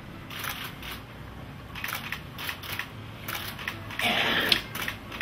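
Camera shutters clicking again and again at irregular intervals, several cameras at once. About four seconds in a louder rush of noise lasts about half a second.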